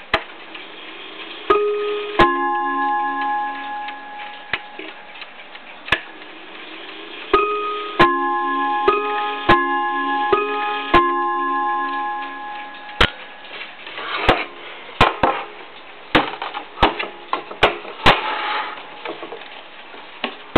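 Franz Hermle & Sohn mantel clock's motor-driven movement chiming on its rods over its ticking: two notes, then after a pause a run of about six notes that ring on. Sharp clicks follow in the second half.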